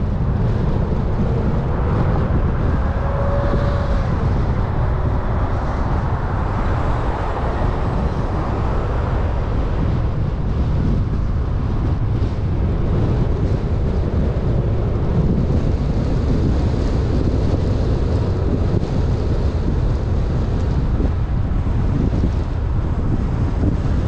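Steady road and wind noise from a car driving along a city street: a deep rumble with wind buffeting the microphone. A faint rising tone comes through about three seconds in.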